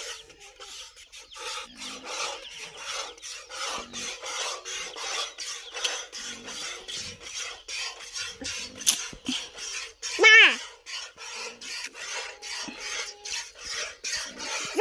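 Milk squirting from a cow's teats into a plastic bucket during hand milking: a rhythmic hissing of about two to three squirts a second. A short pitched call sounds about ten seconds in.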